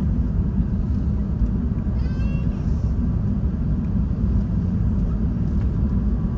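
Steady low rumble of jet aircraft noise at the airfield. About two seconds in, a brief rising animal call cuts through.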